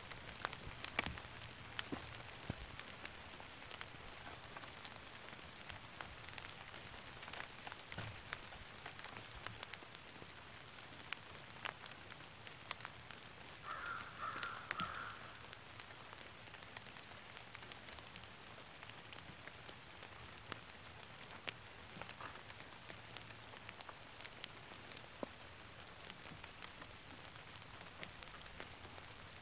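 Faint woodland ambience with scattered light ticks and knocks, and a short run of bird calls about halfway through.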